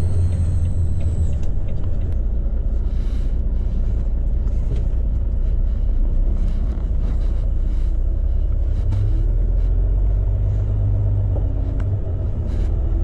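Volvo lorry's diesel engine running, heard from inside the cab as a steady low rumble, with light clicks and rattles now and then.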